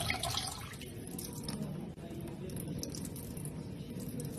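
Thin stream of tap water trickling steadily into a stainless steel bowl in a sink.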